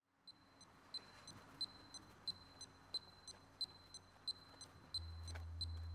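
Clock ticking: short, high, evenly spaced ticks about three a second, every other tick louder, like a tick-tock. A low steady rumble comes in near the end.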